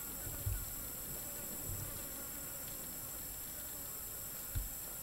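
Steady high-pitched drone of forest insects, with a few soft low thumps about half a second in, near two seconds and near the end.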